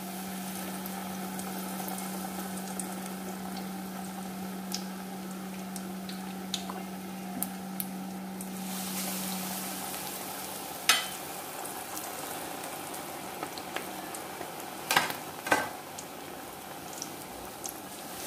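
Batter-coated chilli bajji fritters deep-frying in hot oil in a steel kadai: a steady bubbling sizzle with a few sharp clicks. A low steady hum underneath stops about ten seconds in.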